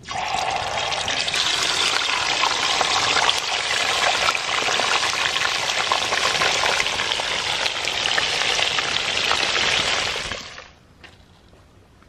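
Whole mojarras frying in a pan of hot oil: a loud, crackling sizzle that starts at once as the fish go into the oil and dies away about ten seconds in.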